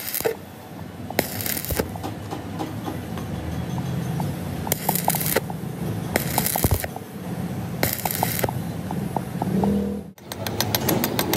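Gas welding torch flame hissing on a steel tie rod ball pin as filler rod is melted onto the worn ball to build it back up to size, with the crackle and spit of molten metal. The hiss swells four times. Near the end, after a cut, a rapid regular ticking of about nine a second takes over.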